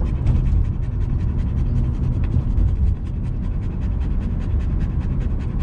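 Golden retriever panting fast and evenly, close up, over the steady low rumble of the car's engine and road noise in the cabin.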